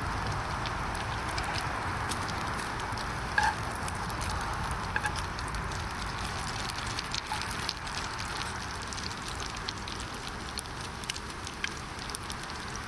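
Smoked bacon frying in a pan on a portable gas stove: a steady sizzle with scattered spitting crackles over the hiss of the burner. There are a couple of brief metallic clinks, about three and a half and five seconds in, as the bacon is turned with tongs.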